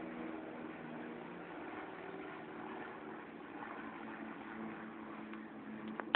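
Distant aircraft passing overhead: a steady engine drone with several held tones that fade away over the first two or three seconds, under a constant rushing noise.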